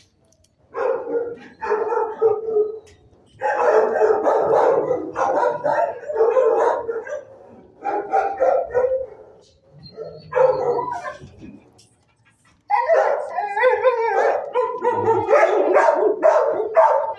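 Dogs barking in a shelter kennel block, several at once in bouts with brief lulls.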